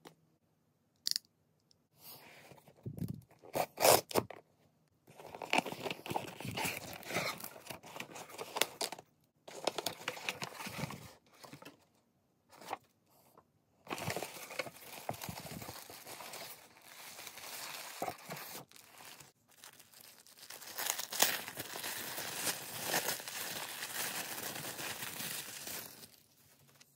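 Unboxing a cardboard shipping box: packing tape torn off and the box handled with a few sharp knocks, then long bouts of paper and cardboard rustling and crinkling as the flaps are opened and the paper wrapping is pulled apart.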